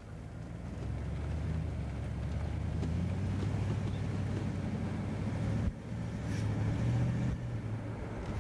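Low engine drone with road and wind noise, heard from inside a car driving alongside a passenger train. It swells over the first second, then runs steadily, with a short break about two-thirds through.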